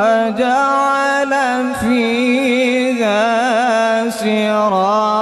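A man reciting the Quran in the melodic tajweed style, one long drawn-out phrase with wavering, ornamented pitch and only brief breaks, amplified through a microphone.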